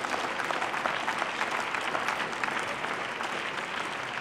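Members of parliament applauding: steady, dense clapping in approval of the speaker's point.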